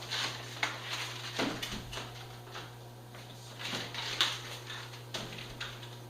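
Irregular knocks, scrapes and rustles of objects being handled and set in place, with a sharp knock a little past four seconds in, over a steady low hum.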